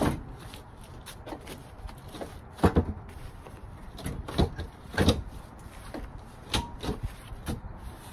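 Sheet of cement board being dropped into a wooden counter frame and worked into place: about half a dozen separate knocks, the loudest about two and a half and five seconds in.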